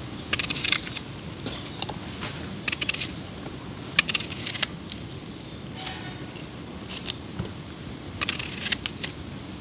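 Small knife peeling and paring an onion by hand: short crackly scrapes through the papery skin and flesh, coming in brief bursts every second or so.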